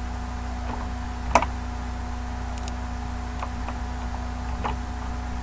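Scattered clicks of a computer mouse and keyboard as code is copied and pasted, the sharpest about a second and a half in, over a steady electrical hum.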